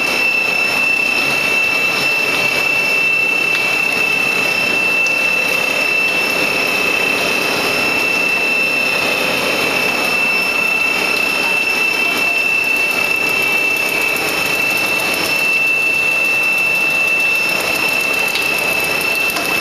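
Plastic sheet extrusion machine running steadily: a constant mechanical noise with a steady high-pitched whine over it.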